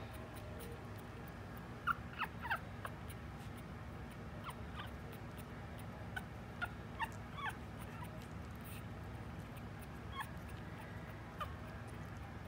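Young Maltese puppies squeaking and whimpering: short high squeaks in small clusters, about two seconds in, again around six to seven and a half seconds, and a couple more near the end, over a low steady hum.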